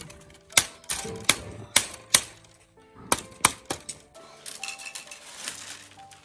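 Split bamboo strips clacking sharply as a basket is woven, about eight separate clicks in the first four seconds, then a softer rustling and scraping of the strips as the basket's sides are bent up. Light background music runs underneath.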